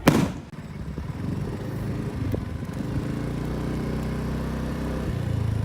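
A single sharp bang at the very start, then a motorbike engine running steadily under way, a little louder near the end.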